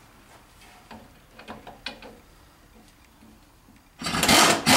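Light metallic clicks and ticks of hand tools being worked on a truck's transmission mount. About four seconds in, a loud, rasping burst of noise in two parts lasts just over a second.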